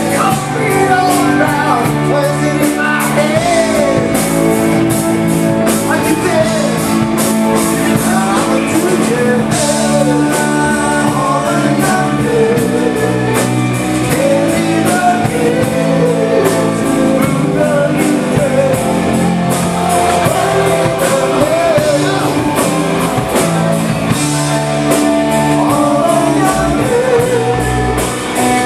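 Glam rock band playing: a male singer sings into a microphone over electric guitar and a drum beat.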